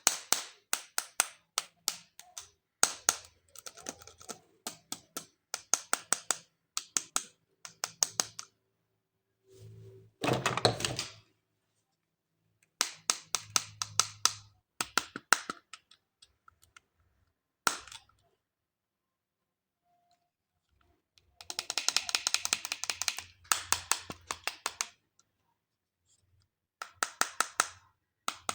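Close-up handling of plastic toys and packaging: runs of sharp clicks and taps, a short burst of rustling about ten seconds in, and a long dense crackling stretch about three-quarters of the way through, with a few quiet seconds before it.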